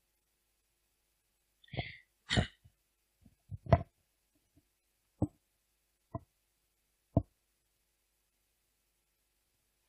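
Handling noise on a handheld microphone: a couple of brief scuffs about two seconds in, then several short dull thumps and bumps spread over the next few seconds, with dead silence between them.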